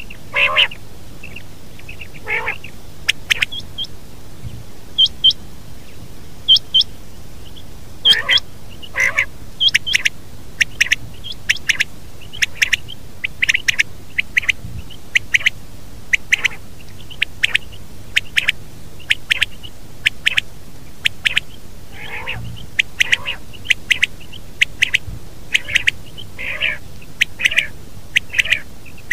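Quail calling over and over with short, sharp call notes, few at first, then coming rapidly in quick runs from about eight seconds in, over a steady hiss.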